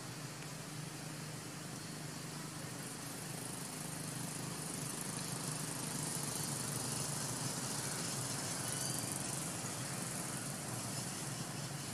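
Steady outdoor background noise: a low hum with a hiss over it, growing a little louder about halfway through, with no distinct event standing out.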